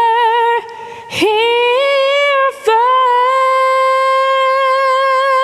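A cappella female singing through an electronic vocal harmonizer, holding long chords. There is a short break with an audible breath about a second in, another brief break about two and a half seconds in, then one long chord held to the end.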